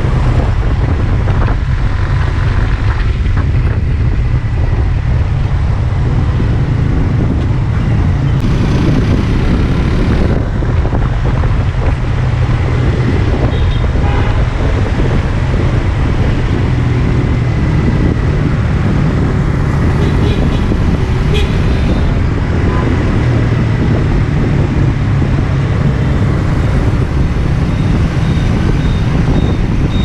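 Suzuki GSX-R150's single-cylinder engine running under way in motorbike traffic, under heavy low wind rumble on the microphone, with surrounding traffic noise and a few short high beeps now and then.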